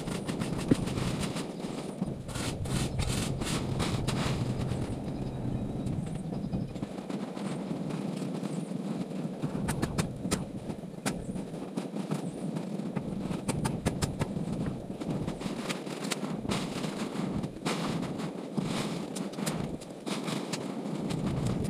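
A motor running steadily, with irregular crackles and knocks over it.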